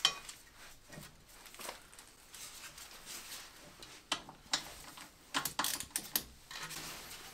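Scattered light metallic clicks and taps of a torque wrench and socket being handled on a suspension pinch bolt as the wrench is set and put to work, with a few quick runs of clicks near the end.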